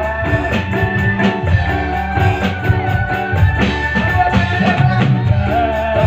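Live band music: a steady drum beat with tambourine-like percussion under a held, wavering melody.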